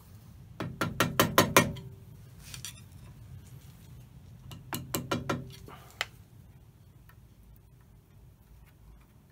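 Light hammer taps on a steel shaft and key, driving the key out of its keyway: two quick runs of sharp, slightly ringing strikes, about six and then about five, followed by a single tap.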